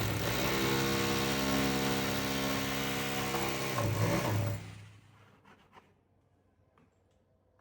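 Electric drill running at a steady pitch, then winding down and stopping about four and a half seconds in, followed by a few light clicks and near silence.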